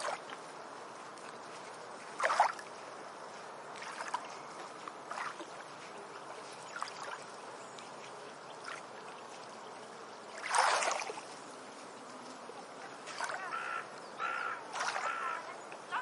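Beach ambience: a steady wash of water with small waves splashing on the shore, the loudest splashes about two seconds in and again about ten and a half seconds in. Near the end come a few short pitched calls.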